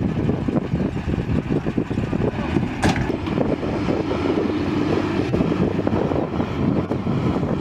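Military vehicle engine running as it drives over a dirt track, with a steady rumble and a brief sharp noise about three seconds in.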